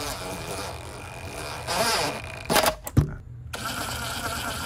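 Cordless impact driver with a socket on an extension running a windshield bolt into a Jeep windshield frame, rattling as it drives. It stops briefly about three seconds in, then runs again.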